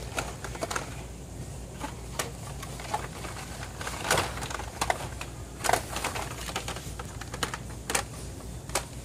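Plastic blister-card packs of Hot Wheels cars clicking and clattering against each other and on metal peg hooks as a hand flips through them. The clicks are irregular, with a few sharper clacks about four and six seconds in.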